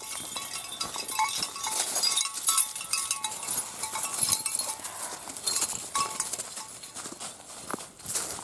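Footsteps on a hiking trail: a run of short, irregular steps with a rustling hiss and a few faint tinkling tones.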